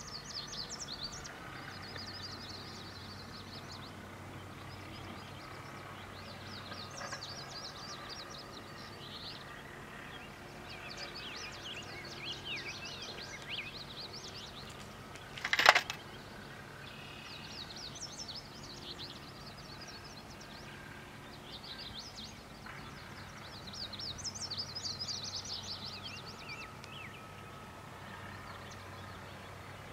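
Songbirds chirping and trilling on and off, over a faint low steady hum, with one sharp click about halfway through.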